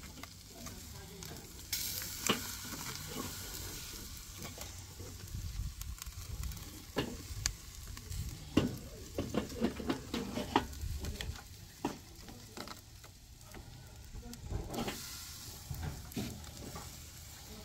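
Beef steaks sizzling on a hot charcoal grill, a steady hiss that grows louder about two seconds in and drops back near the end. Irregular sharp clicks and knocks run through the middle of the sizzle.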